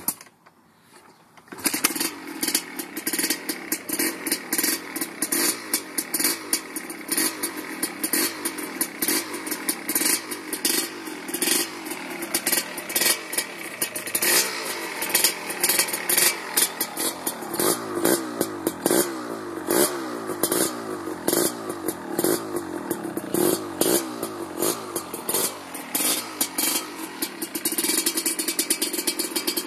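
Two-stroke dirt bike engine with an expansion-chamber exhaust starting about a second and a half in, then running and being revved up and down, with sharp crackling pops throughout.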